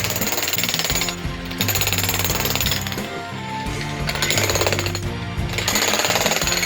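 XtremepowerUS 2200 W electric demolition hammer breaking concrete rock, hammering in several loud bursts with short pauses between them.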